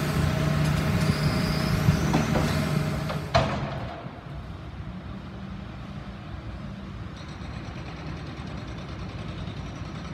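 Diesel engine of a tracked excavator running steadily close by. About three seconds in there is a sharp click, and the sound drops to a quieter steady rumble of distant traffic and construction machinery.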